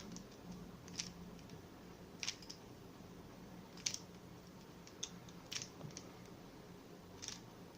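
Faint clicks of a Rubik's cube's layers being turned by hand, about six sharp, irregularly spaced clacks, one per turn, as a move sequence is worked through.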